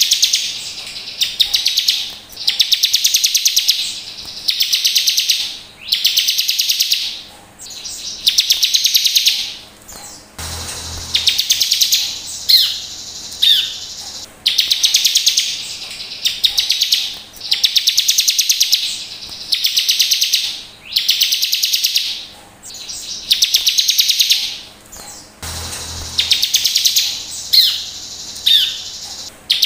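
Bar-winged prinia (ciblek) singing: loud, rapid buzzy trills about a second long, repeating roughly every second and a half, with short sharp falling notes between them.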